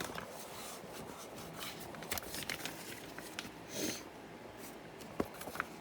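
Faint, scattered clicks and taps of plastic LEGO pieces being handled, with a brief soft rustle about four seconds in.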